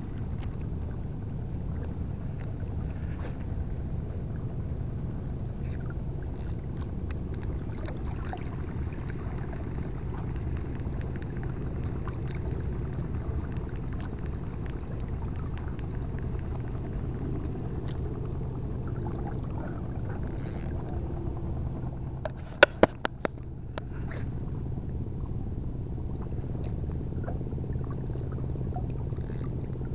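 Steady low rumble of a boat engine running, with a faint constant hum. About three-quarters of the way through, a quick run of four or five sharp clicks.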